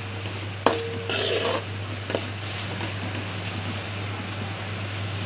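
Chopped vegetables sizzling in oil in a steel kadai while a spatula stirs them, with a sharp click of the spatula on the pan about a second in and a brief scrape just after. A low steady hum runs underneath.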